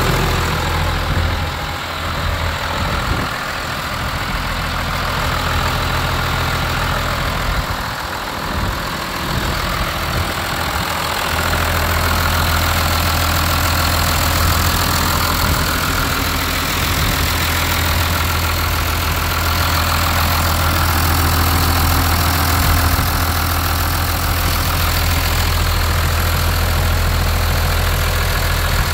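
John Deere 3650 tractor's six-cylinder diesel engine idling steadily.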